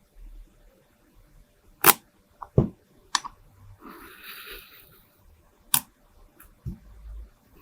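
Kinetic sand being handled: a few sharp clicks and taps spread over several seconds, one duller knock near the end, and a short crumbly rustle about four seconds in.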